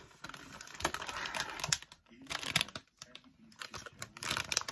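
Crinkly plastic snack packaging being handled, giving a busy run of sharp crackles and rustles.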